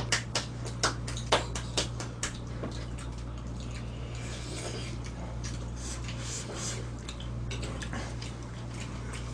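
Spoons and chopsticks clinking against stone bowls and dishes during a meal: a quick run of sharp clicks in the first couple of seconds, then scattered fainter ones. A steady low hum runs underneath.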